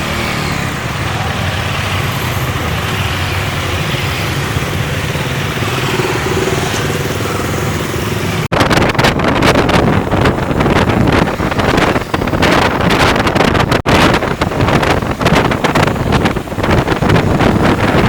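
Motorcycle engine and road noise on the move, steady for about eight seconds. After a sudden cut, heavy wind buffeting on the microphone at riding speed takes over.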